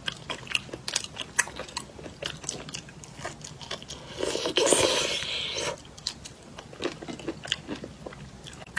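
Close-up eating sounds of a person biting and chewing crunchy shrimp, with many crisp, irregular clicks. About four seconds in there is a louder, denser crunching stretch lasting about a second and a half.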